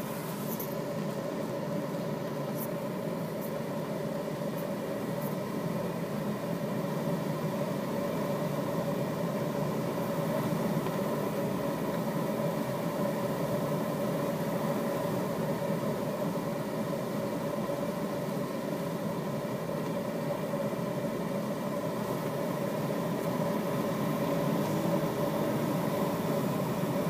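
Steady rush of airflow inside a Duo Discus glider's cockpit on the descent to land, with a steady whistling hum over it. A few faint ticks come in the first few seconds.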